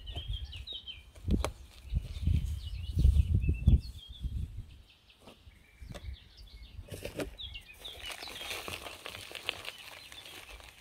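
Gloved hands rustling and knocking soil loose from a dahlia tuber clump and setting it into a bucket of potting soil, loudest in the first few seconds. Small birds chirp in the background.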